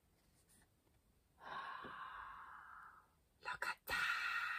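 A person's long, breathy exhale like a sigh, heard twice, with two small clicks just before the second one.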